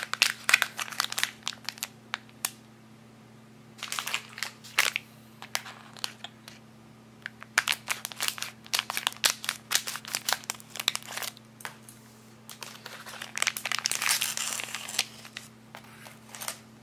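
Foil blind bag crinkling as it is squeezed and handled, snipped open with scissors, and its plastic inner packaging rustling as it is taken out. The crinkling comes in several spells, the longest and densest near the end.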